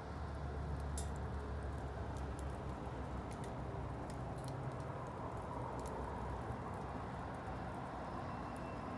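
Wood bonfire burning: a steady low rush of flame with scattered sharp crackles and pops from the wood.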